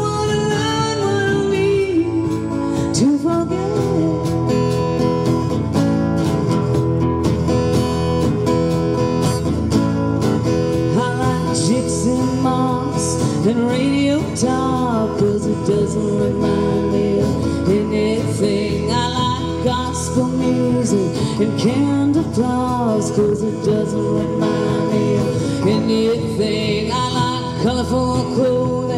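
Live country music: a woman singing with two acoustic guitars playing along, continuous through the whole stretch.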